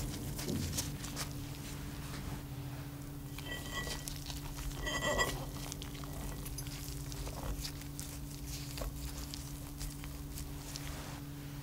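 Gloved hands handling a soft baked brownie cake layer and pressing it into a ceramic baking dish: faint rustles and light taps, with a few short squeaks about four to five seconds in, over a steady low hum.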